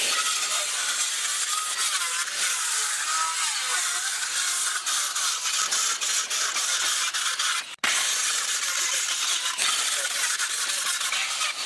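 Handheld circular saw cutting through red oak pallet boards, a loud steady blade whine whose pitch wavers as it bites into the wood. It cuts out for an instant about eight seconds in and then carries on.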